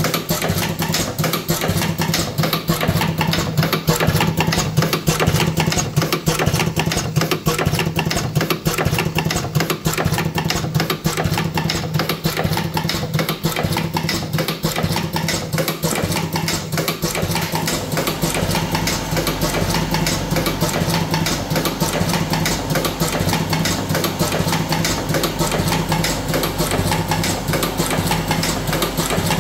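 Buffalo V4S electric cigarette tube-filling machine running: a steady motor hum under rapid, continuous mechanical clatter, with a deeper hum joining about two-thirds of the way through.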